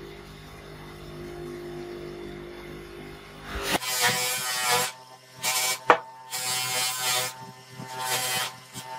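DeWalt bench grinder running with a steady hum, then from about four seconds in a small metal part is pressed against its spinning black wheel in short, repeated passes, each a brief scraping burst, with one sharp click among them.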